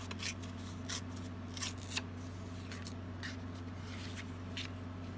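A piece of cardstock being torn by hand in a few short rips, with paper rustling and sliding between them, over a low steady hum.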